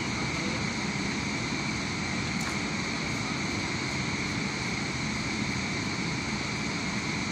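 Steady machine noise: a continuous low rumble with a constant high whine, unchanging throughout.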